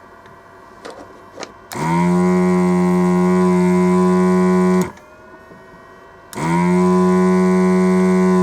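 A small motorised tool running in two bursts of about three seconds each, each starting with a quick rise in pitch before settling into a loud, steady buzzing drone. A couple of faint clicks come just before the first burst.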